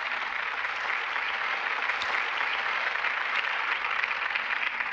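An audience applauding steadily: many people clapping at once at the end of a speech. The clapping dies away just after the end.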